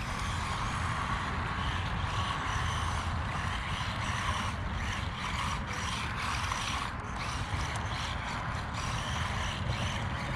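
Small 1/18-scale electric RC truck (Haiboxing Ratchet) driving over grass and dirt: a steady faint motor and gear whine over the noise of its tyres on the ground.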